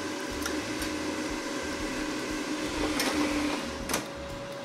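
Philips Walita air fryer running with a steady fan hum. Light clicks and scrapes of a spoon stirring okra in the mesh basket sound over it, and a knock about four seconds in as the basket is slid back into the fryer.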